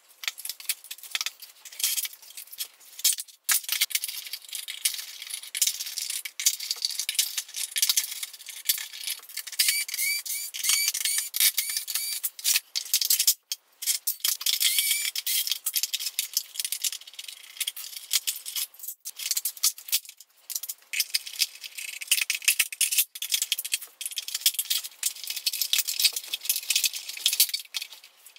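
Fast, dense clicking and rattling of hand tools, screws and plastic parts as an upright vacuum cleaner is taken apart, in sped-up time-lapse audio, high-pitched throughout. There are brief gaps in the clatter about three and a half, thirteen and nineteen seconds in.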